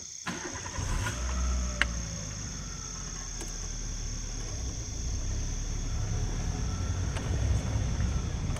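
Safari vehicle's engine running as it drives slowly along a forest track, a steady low rumble that comes in suddenly just after the start. Crickets keep up a steady high chirring over it.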